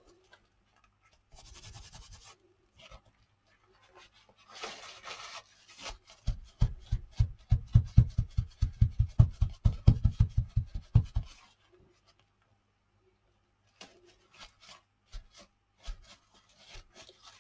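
Folded paper towel dabbed quickly and repeatedly onto wet paint through a stencil on a tabletop, blotting off the excess. It gives a run of dull thumps about five a second for some five seconds, after a couple of short bursts of paper-towel rubbing. Near the end come a few light clicks as the plastic stencil is lifted.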